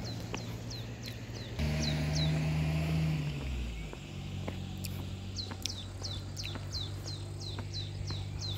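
A bird repeating a short, falling call, about two calls a second, pausing in the middle and coming thick again near the end. Under it runs a low steady hum that swells for a second or two about two seconds in, with a few light ticks.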